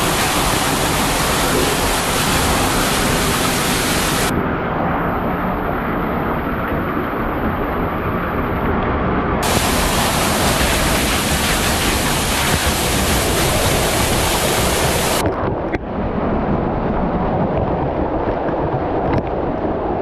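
Waterfall pouring and splashing, heard from right beside the falling water as a loud, steady rush. Its brightness changes abruptly a few times.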